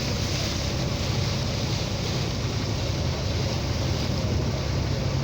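Motorboat engine running at a steady drone under way, with water rushing along the hull and wind buffeting the microphone.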